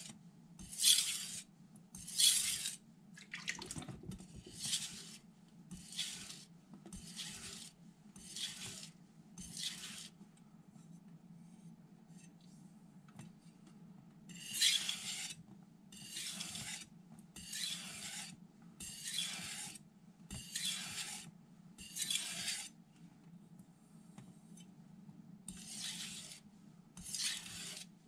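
Carbon steel (blue #2) knife blade drawn in repeated strokes across a wet 1200-grit Miyagoshi vitrified whetstone: a hissing scrape roughly every second and a half, in three runs with short breaks between them, as the last passes refine the edge.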